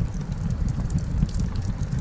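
Campfire crackling with scattered sharp pops, over an uneven low rumble.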